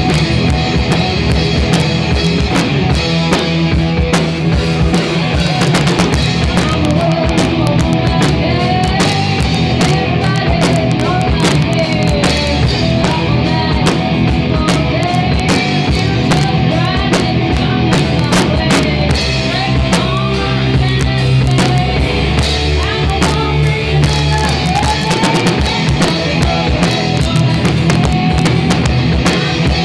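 A live heavy metal band playing loudly, with a drum kit hitting busily throughout under distorted guitars and bass.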